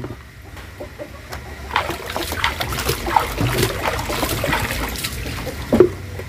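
Water splashing and trickling as plastic basins are rinsed by hand and a basin of water is poured into a bucket, with chickens clucking in the background and a knock near the end.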